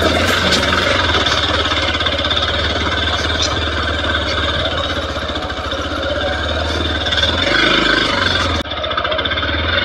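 Hero Xpulse 200 4V's single-cylinder engine running steadily as the motorcycle rides off-road over a rough harvested field.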